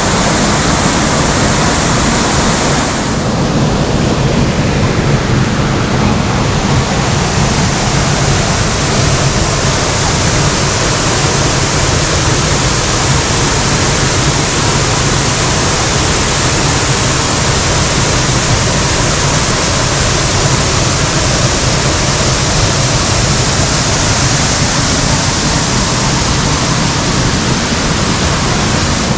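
Waterfall pouring into its pool, a loud steady rushing of water that dulls briefly about three seconds in.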